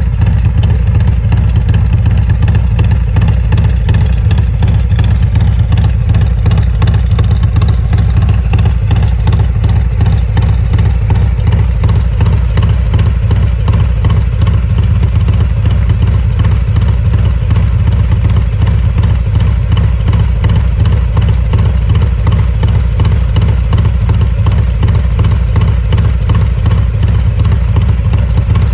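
An engine running steadily at an even speed, loud and low-pitched with a rapid, even pulse, unchanging throughout.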